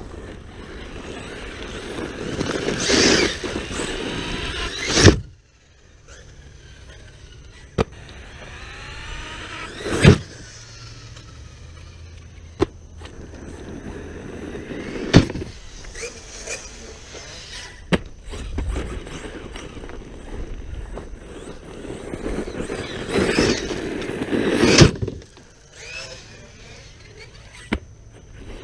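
Arrma Kraton V4 6S RC truck's brushless motor whining up and down in pitch as it accelerates, with tyres churning gravel. Sharp knocks and thuds from jumps and landings break in several times, the loudest about five, ten, fifteen and twenty-five seconds in.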